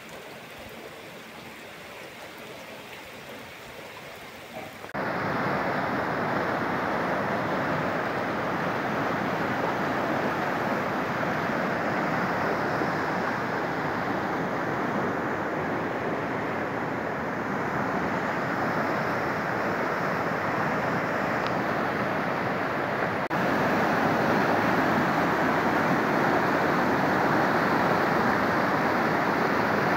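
Heavy rain, a steady rushing hiss with no distinct drops. It is quieter at first, then jumps much louder about five seconds in and a little louder again near the end.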